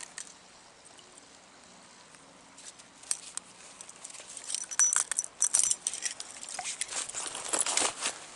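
Handling noises: after a quiet start, a run of rustling and sharp light clicks and clinks begins about three seconds in and keeps going, with a brief metallic jingle near the middle.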